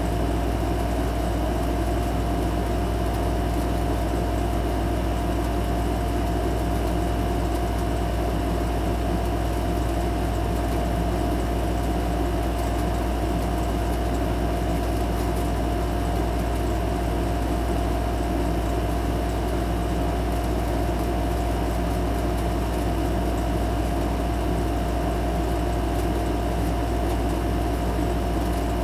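Steady, unchanging mechanical hum with a constant whine above it.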